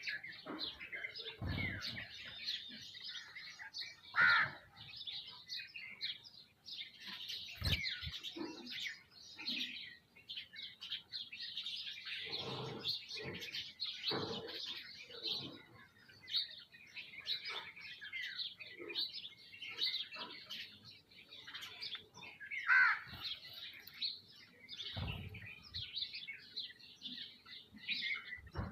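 A feeding flock of sparrows and mynas chirping and chattering without a break, with a few louder falling calls standing out. Three short, soft thumps sound among the chirping.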